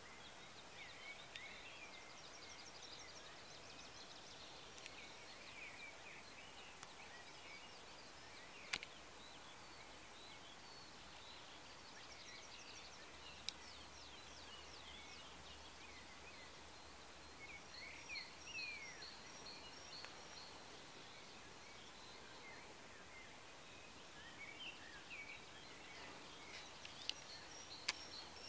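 Several songbirds singing faintly over a steady outdoor hiss, with short chirps, whistled notes and fast ticking trills throughout. A few sharp clicks stand out, with a cluster near the end.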